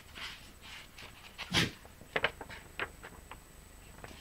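A picture book being handled: a few soft rustles, a louder brushing stroke about one and a half seconds in, then a run of small sharp clicks.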